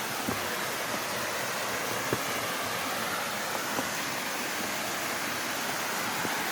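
Steady rush of falling water from a waterfall, with a few faint ticks.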